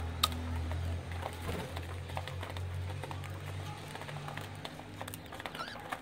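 Budgies in a cage: a few short, faint chirps and small scratching clicks over a steady low hum, with one sharper click just after the start.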